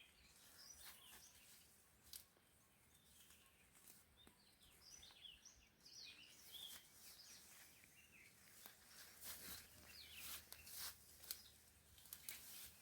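Near silence: faint outdoor background with scattered short, high bird chirps, thickest in the middle, and a few soft clicks.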